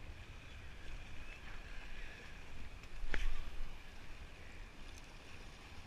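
Wind buffeting the microphone over water lapping against rocks, with a short sharp swish about three seconds in as the fishing rod is cast.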